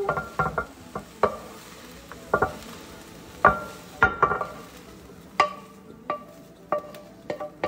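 A wooden spatula scrapes and knocks against a skillet as cooked cabbage is pushed out into a ceramic bowl. The knocks are irregular, and some leave the pan ringing briefly.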